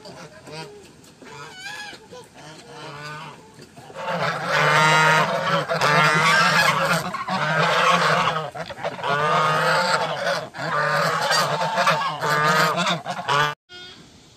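A flock of domestic waterfowl calling over one another. A few scattered calls come first, then a loud, dense clamour from about four seconds in, which cuts off abruptly near the end.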